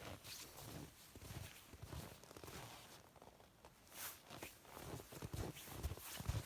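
Faint, irregular footsteps.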